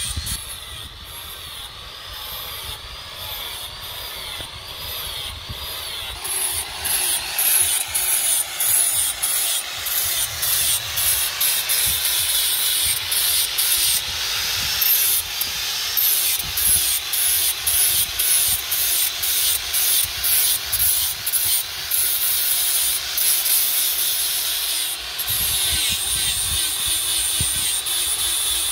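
Handheld electric angle grinder grinding the edges of steel knife blanks, its disc hissing against the metal. It is lighter at first, with the motor's whine wavering, and gets louder about six seconds in as the passes come in a steady rhythm of about two a second.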